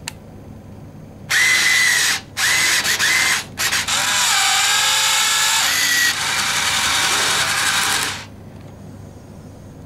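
Bill validator's transport motor drawing in a banknote: a whirring motor starts about a second in, stops briefly twice, then runs steadily for about four seconds before cutting off, as the note is checked and accepted. A light click comes just at the start.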